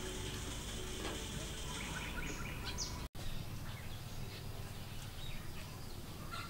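Outdoor rural background noise with faint bird chirps. The sound drops out for an instant about three seconds in, and the background changes after it.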